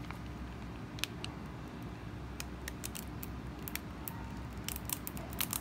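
Mayonnaise being squeezed from a soft plastic pouch onto the salad: scattered small crinkles and squelches, coming more often near the end, over a steady low hum.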